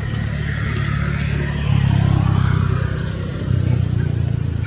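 Motor vehicle engine running steadily nearby, its low hum growing louder for a moment about two seconds in.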